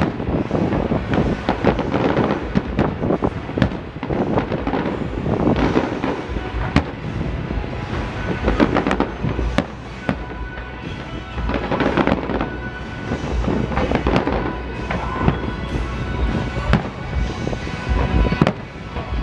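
Fireworks display: a continuous barrage of aerial shell bursts, with many sharp bangs in quick succession and crackling between them.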